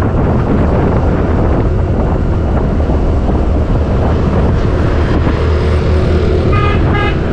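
Wind rushing steadily over an action camera's microphone while riding a TVS Jupiter 125 scooter, with the scooter's single-cylinder engine running underneath. A few short, high-pitched beeps repeat near the end.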